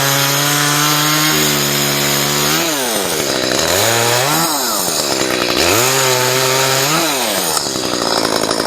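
Chainsaw revved to full throttle three times while trimming tree branches. Each rev rises quickly, holds for one to three seconds, then drops back toward idle.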